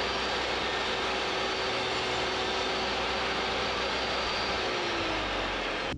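Portable table saw running with a steady whine, its blade tilted to 45 degrees to rip a bevel along thin Sapele mahogany strips. The pitch sags slightly near the end, and the sound cuts off suddenly just before the end.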